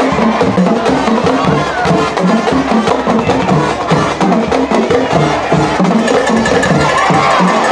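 Drums, most likely a stadium band's drumline, playing a steady, quick beat, with crowd noise behind.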